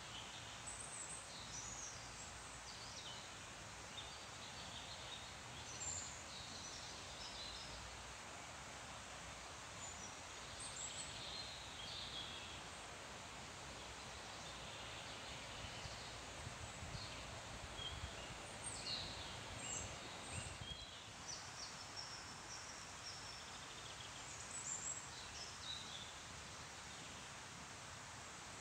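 Scattered bird chirps and song phrases over a steady, faint hiss of leaves rustling in the wind.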